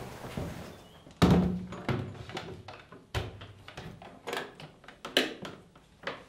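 Hard plastic instrument carrying case being handled and opened: a heavy thunk about a second in, then a string of sharp clicks and knocks as the lid is worked open.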